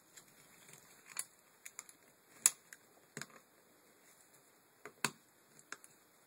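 Irregular sharp clicks and taps of plastic parts of a Land Rover Freelander MK1 tailgate window regulator being handled and fitted together: its cable drum housing and cable being seated by hand. The loudest click comes about two and a half seconds in, another strong one near five seconds.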